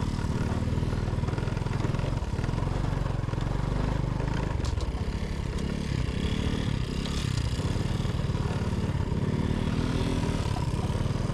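A small vehicle engine running steadily, its pitch rising and falling a few times in the second half.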